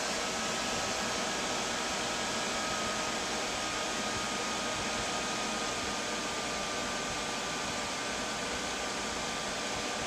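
Steady whir of desktop PC cooling fans in an open case, with a faint whine that sinks slightly in pitch.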